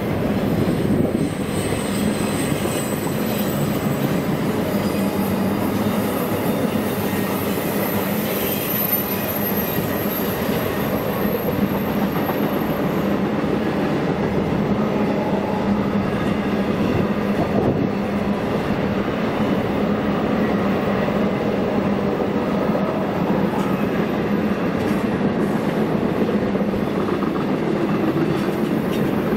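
Double-stack intermodal freight train's cars rolling steadily past, steel wheels running on the rails. A thin, high-pitched wheel squeal runs over roughly the first half.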